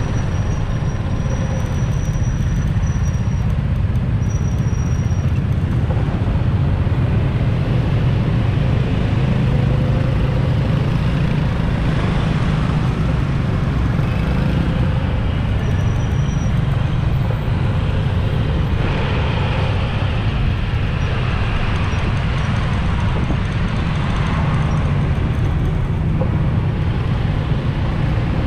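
Steady noise of dense rush-hour street traffic, mostly motorbikes, with a constant deep rumble of engines and tyres.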